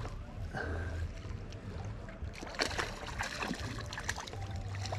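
A hooked brown trout splashing and thrashing at the water's surface as it is reeled in, with a cluster of splashes between about two and a half and three and a half seconds in, over a low rumble.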